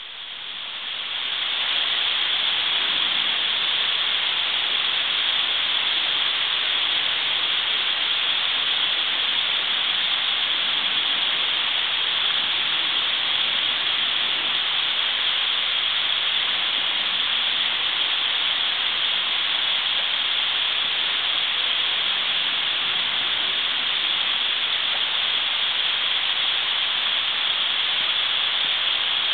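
Steady, even hiss with no distinct events, brightest in the upper range, swelling over the first two seconds and then holding level.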